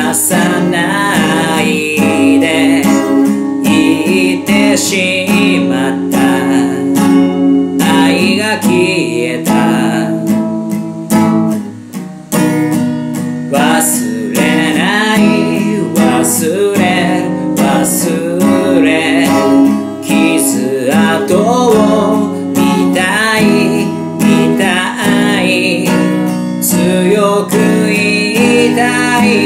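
A man singing in Japanese while strumming an acoustic guitar, with a short break in the playing about twelve seconds in.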